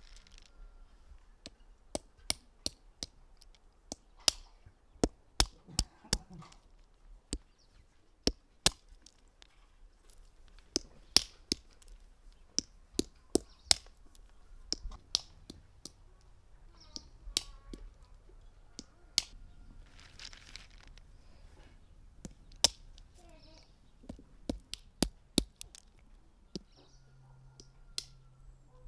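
A series of sharp, irregular knocks and cracks, one or two a second with short pauses between runs, from hands-on cooking work.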